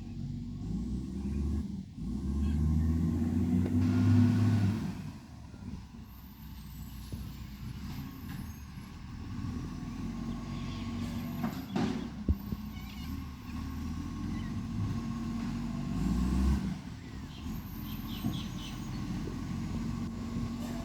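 Iveco ACCO garbage truck's diesel engine running with an exhaust leak. It revs up loudly about two seconds in and surges again briefly later on, with a short sharp burst of noise about halfway through.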